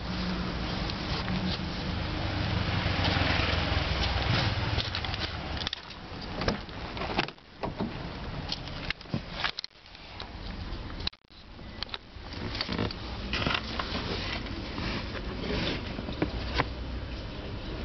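A steady low rumble in the first few seconds, then a string of knocks and rustles as a handheld camera is moved about inside a car.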